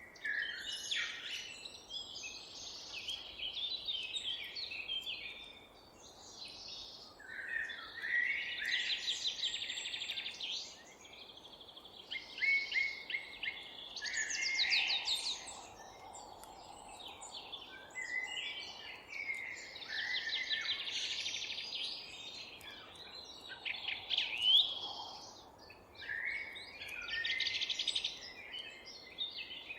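Several songbirds singing and calling at once, a dense, overlapping chorus of chirps and rapid trills, over a faint low background hiss.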